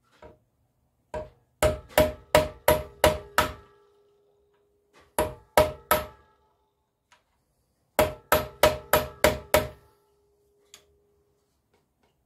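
Hammer striking a centre punch against the metal can of an ABS pump motor in three quick runs: about seven blows, then three, then six, each with a brief metallic ring. The punch is forming indents in the casing to hold the motor down in the ABS unit.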